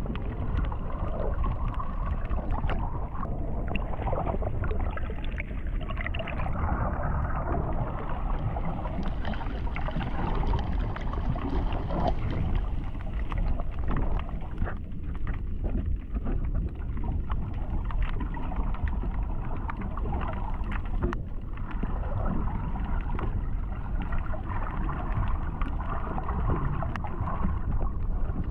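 Ocean water sloshing and churning, muffled, with a steady low rumble and many small scattered clicks.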